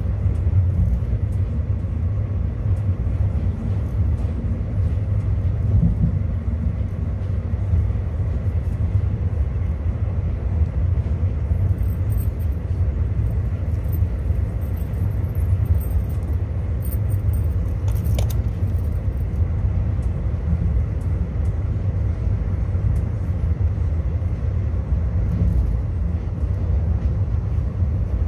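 Track noise of an ICF passenger coach running at speed, heard from inside its air-conditioned 3rd AC compartment: a steady low rumble of wheels on rails with scattered faint clicks, and a few brief high-pitched rattles in the middle.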